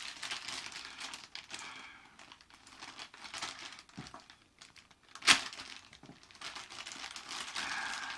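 Packaging rustling and crinkling as items are handled and unwrapped, with one sharp snap a little past halfway that is the loudest sound.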